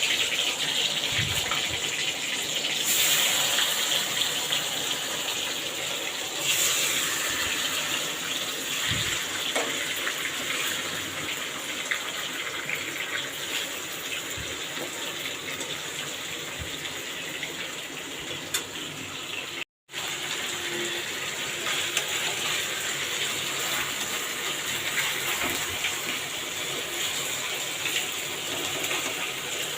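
Marinated chicken pieces sizzling as they fry in ghee and refined oil in a kadai: a steady hiss that cuts out for a moment about twenty seconds in.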